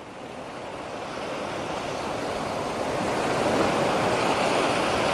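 A steady rushing noise that grows louder over the first three seconds or so and then holds.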